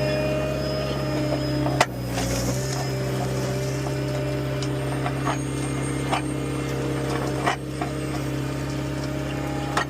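An engine running steadily at a constant speed, with a few sharp clicks and knocks, the loudest about two seconds in.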